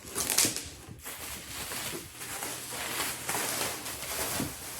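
Rustling, scraping and crinkling of a cardboard box and its packing material being handled and opened, with a sharper crackle about half a second in.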